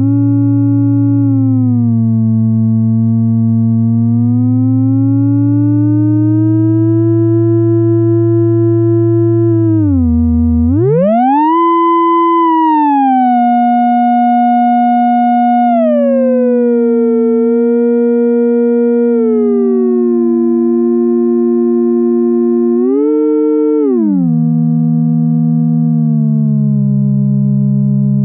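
Sustained synthesizer tone through the CubuSynth Dual CS-20 resonant filter, an MS-20-style multimode VCF, its cutoff sweeping so the resonant peak glides slowly up and down. About ten seconds in the tone dips and then sweeps up sharply to a brighter pitch, settles back down in steps, and gives one more short upward blip near the end.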